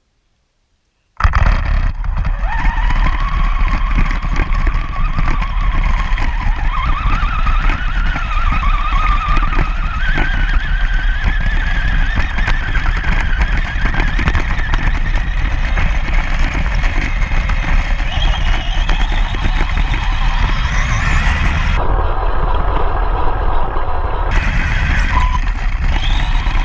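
High-pitched whine of small electric RC motors over loud rough rumbling noise, the whine wandering up and down with speed. It climbs steeply near the twenty-second mark.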